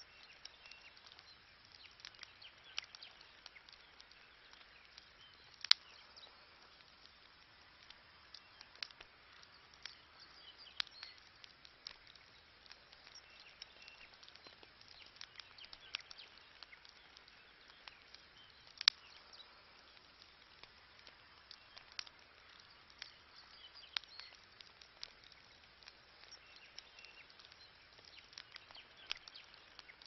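Wood campfire crackling, with irregular small snaps and pops over a faint hiss; two sharper pops stand out, about six seconds in and again about nineteen seconds in.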